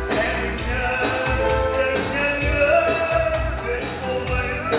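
A man singing live into a microphone over loud amplified music with a strong bass, heard through the hall's sound system.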